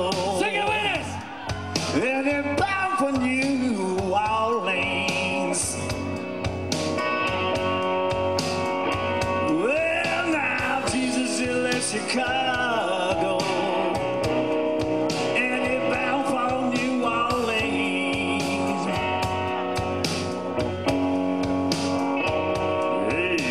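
Live blues-rock band playing an instrumental passage: electric guitar lead with bent and held notes over bass guitar and drum kit.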